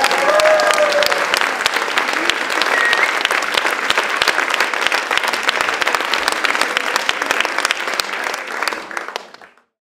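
Theatre audience applauding, with a few whoops in the first second; the applause fades out near the end.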